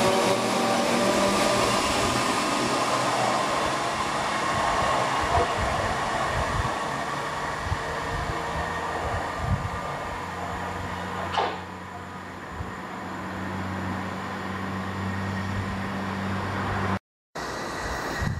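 Southern Class 377 Electrostar electric multiple unit running away along the track. Its traction motor whine falls slowly in pitch and fades over the first few seconds, leaving a steady rushing noise with a low hum.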